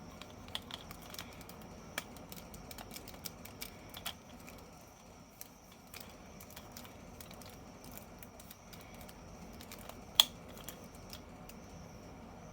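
Scattered light clicks and taps of small plastic toys being handled, over a faint steady hiss, with one sharper click about ten seconds in.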